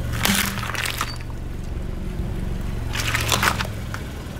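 A car's engine running slowly at low revs while its tyre rolls over and crushes things: two crunching, crackling bursts, the first just after the start lasting under a second, the second about three seconds in.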